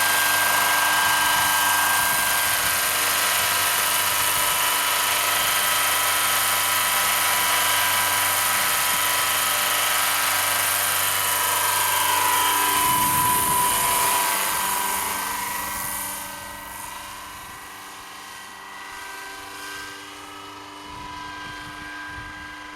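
Electric radio-controlled scale helicopter with a four-blade main rotor running: a loud steady whine from the electric drive over the rotor's rush. Some two-thirds of the way through, the pitch bends down and the sound falls off markedly, staying fainter to the end.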